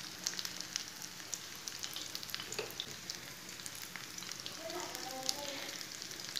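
Egg-battered bread slices frying in hot oil in a pan: a steady sizzle dotted with many small crackles.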